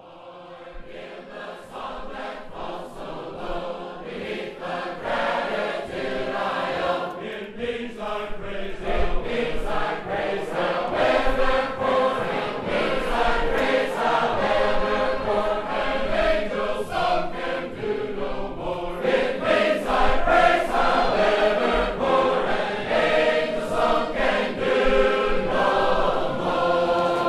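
Many voices singing together like a choir, fading in at the start and growing louder over the first several seconds.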